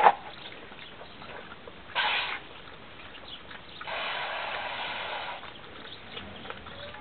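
Kelpie puppies drinking, with small wet ticks and clicks of lapping at a water dish. A sharp knock comes right at the start. Two louder noisy bursts follow, a short one about two seconds in and a longer one around four to five seconds in.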